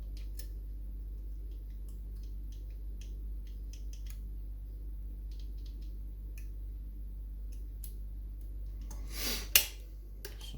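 Small metal clicks and ticks of wire lever-lock picks and a tension tool working inside a Chubb 3U114 lever mortice lock while feeling for binding levers. About nine seconds in comes a louder scrape ending in one sharp click.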